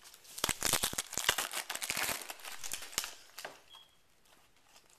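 Crinkling and tearing of a trading-card pack wrapper being opened by hand, a dense run of crackling that stops about three and a half seconds in.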